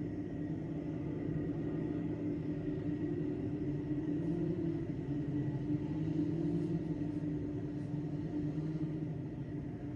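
Railway station ambience dominated by a steady low mechanical hum that wavers slightly, with a faint thin high tone above it.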